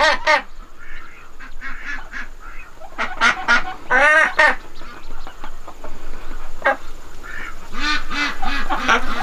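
Broody Khaki Campbell duck hens quacking in short runs, the loudest and longest about four seconds in, with another run of quacks near the end.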